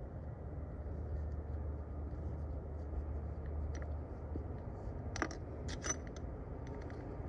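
Faint clicks and scrapes of a bolt being turned in by hand on a metal fuel-filter bracket, a few short ticks a little past the middle and near the end, over a steady low hum.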